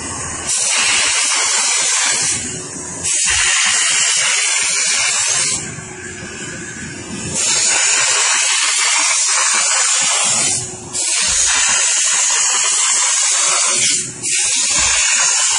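Steam car wash machine's handheld upholstery nozzle hissing as it sprays steam onto a car's roof headliner, in about five spurts of two to three seconds as the trigger is pressed and let go.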